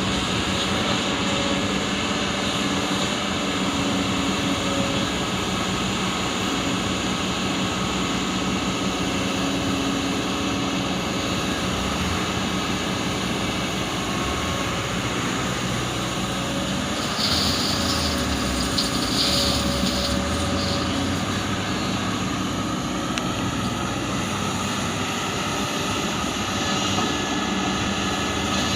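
Large diesel excavator engine running steadily under load, with a short high hiss about two-thirds of the way through.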